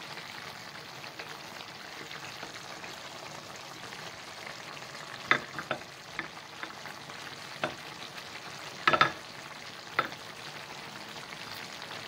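Tomato sauce sizzling steadily in a frying pan of tagliatelle nests topped with raw meatballs. A few short sharp clicks and knocks come about halfway through and near the end, the loudest cluster about nine seconds in.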